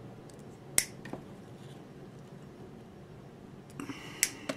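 Small sharp clicks from hands working a small hand tool and thin wire leads. There is one loud click about a second in and a fainter one just after, then a cluster of clicks with light rustling near the end.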